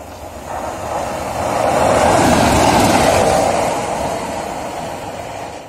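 Diesel locomotive approaching with a rising and falling engine rumble, loudest about two to three seconds in.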